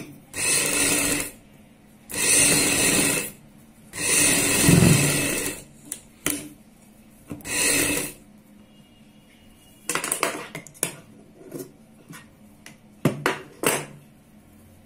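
Sewing machine stitching in short runs of about a second each, four of them in the first eight seconds, then a string of short clicks and brief spurts as the fabric is guided and repositioned.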